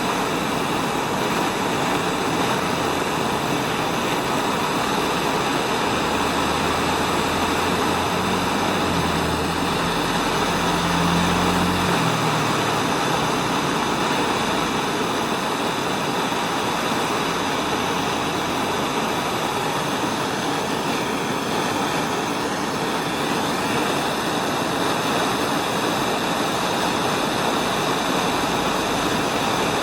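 MAP gas torch burning with a steady rushing hiss, heating the cable joint to flow solder.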